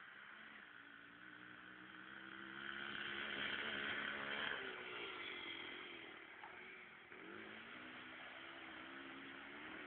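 Motocross bike engine revving. It gets louder to a peak about four seconds in and then fades, and its pitch dips and climbs again about seven seconds in.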